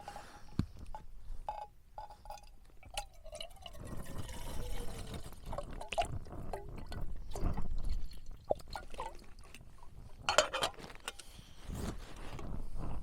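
Water poured into a camping kettle, with light clinks and knocks of metal cookware and a sharper clatter about ten seconds in.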